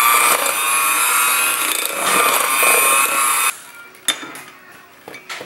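Electric mixer motor running at speed, beating butter, sugar and egg into a light, fluffy cookie dough base. It whines steadily and cuts off suddenly about three and a half seconds in, followed by a short knock.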